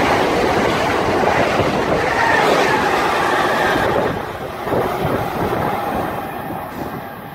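Amtrak Acela Express high-speed train passing close by at speed: a loud, steady rushing of wheel and air noise. About four seconds in the sound drops suddenly to a quieter, duller rumble of a train approaching inside a covered station.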